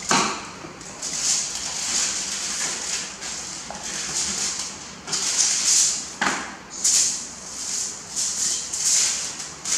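Paper rustling and crinkling as a sheet is handled and smoothed flat on a table, in irregular bursts, with sharper crackles at the start and about six seconds in.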